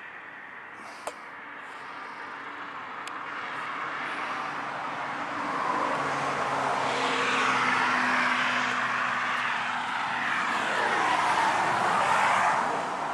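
Engine noise of a passing vehicle, building gradually over several seconds, staying loud with a low steady hum through the middle, then fading near the end.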